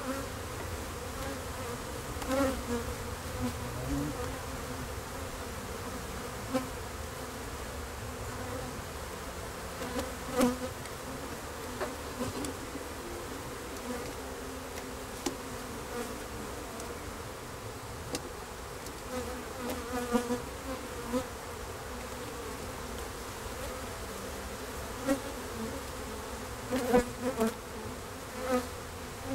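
A colony of European dark honey bees buzzing over an open hive: a steady hum that swells as bees fly close, with a few sharp knocks as the wooden frames are handled.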